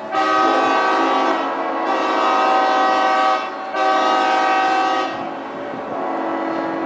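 Many yacht and boat horns sounding together in overlapping long blasts of different pitches, a collective celebratory horn salute. The loud chorus starts at once, drops briefly about three and a half seconds in, comes back, then eases to a quieter held chord after about five seconds.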